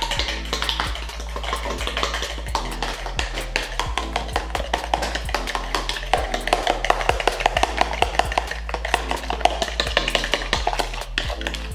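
French toast batter of egg, milk, sugar and cinnamon being hand-whisked in a plastic bowl with a metal utensil, making rapid clicking taps against the bowl. A steady bass line of background music runs underneath.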